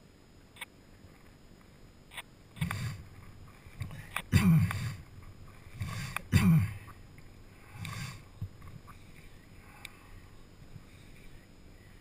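Handling noise from paraglider harness and gear: bursts of rustling and knocking, four louder ones in the middle a second and a half to two seconds apart, with a few small clicks.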